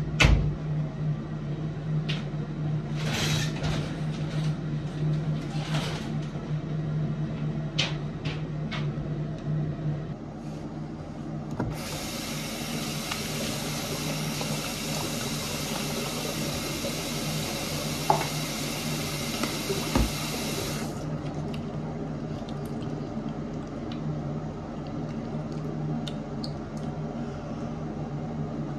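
Water running from a bathroom sink tap, turned on about twelve seconds in and shut off about nine seconds later, while a face is washed by hand. A steady low hum runs underneath. Knocks and handling sounds come in the first ten seconds, the loudest right at the start.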